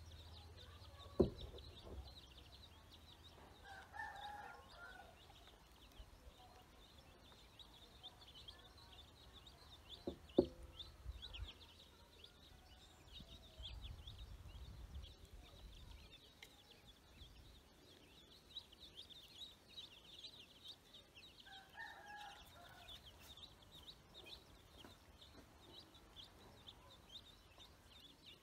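A group of ducklings and young chicks peeping rapidly and without pause, high-pitched. Twice there is a short, lower call, and twice a sharp knock.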